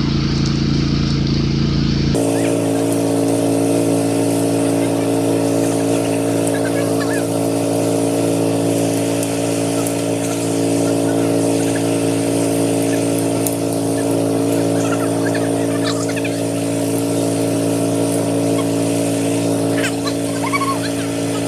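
A motor vehicle engine running steadily at an unchanging idle, its lowest rumble cutting out abruptly about two seconds in. A few faint crackles of brush come near the end.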